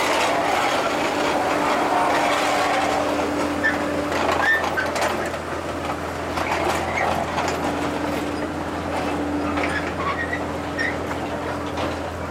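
Diesel suspended-monorail locomotive running as it travels along its overhead rail, a steady engine hum with scattered clicks from its running gear. It grows slightly fainter after about five seconds as it moves away.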